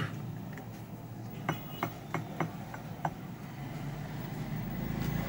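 A handful of sharp clicks and taps from handling the fan, then from about four seconds in a 24-inch high-speed ceiling fan's motor starting up with a low steady hum that slowly grows.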